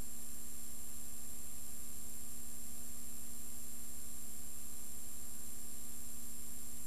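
Steady hiss with a constant electrical hum and faint high whines, unchanging throughout and with no other sound: the noise floor of an old silent film's transfer.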